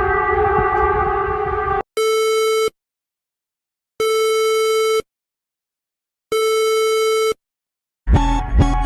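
Emergency alert alarm tones: a steady chord of several tones for about two seconds, then three separate long beeps of one pitched tone, each about a second, with silence between them. Guitar music starts near the end.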